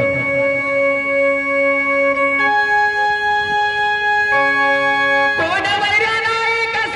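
Instrumental music on an organ-like keyboard: held chords that change a few times, with a wavering melody line entering near the end.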